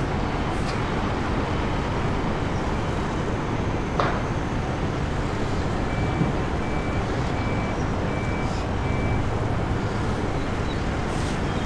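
Steady traffic noise, with a sharp click about four seconds in and a run of five short high beeps in the middle.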